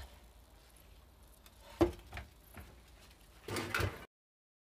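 Knocks and clatter from hard parts being handled: one sharp knock about two seconds in, a few lighter taps, and a short clatter near the end, after which the sound cuts out abruptly.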